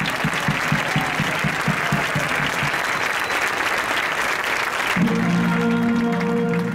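Crowd applauding and cheering over a low, steady beat of about four strokes a second. About five seconds in, this cuts off abruptly and music with long held notes takes over.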